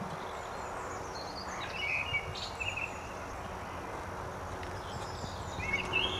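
Small birds chirping in short bursts, about two seconds in and again near the end, over a steady outdoor background hiss.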